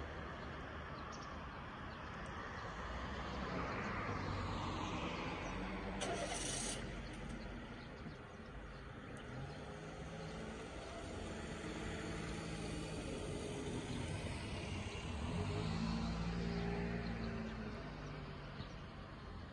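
Road vehicles passing by, their engine and tyre noise swelling and fading several times over a steady low rumble, with a brief high hiss about six seconds in.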